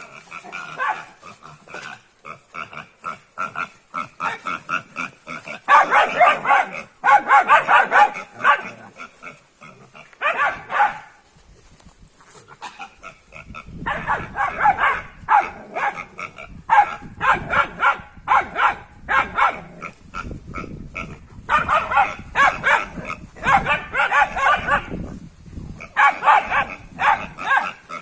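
Two puppies yapping and growling in rapid, loud bursts of one to two seconds, with short pauses between them.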